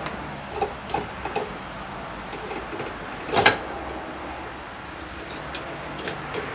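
Hand-cranked slip roll machine rolling a sheet-metal piece, with a few light clicks early and one louder metallic clunk about three and a half seconds in.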